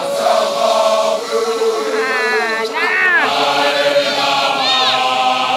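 Basotho initiation graduates (makoloane) chanting together in long held notes, with a few higher voices rising and falling over the group about two and three seconds in and again near the end.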